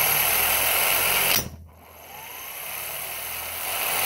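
Flywheel-type impact wrench running, its motor whining and rising in pitch as it spins up the flywheel. A sharp knock about a second and a half in is the flywheel's locking teeth clamping onto the anvil and delivering its blow. The whine then drops and builds again as the flywheel spins back up.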